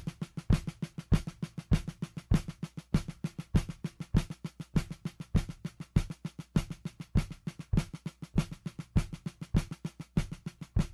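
Background folk music played on drums alone: quick snare-drum strokes and rolls over a steady bass-drum beat, with a strong low hit about every 0.6 seconds.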